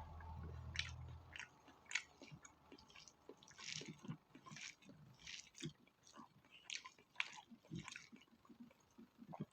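Close-miked mouth sounds of a person chewing spicy pork fat: irregular wet smacks and clicks, a few every second.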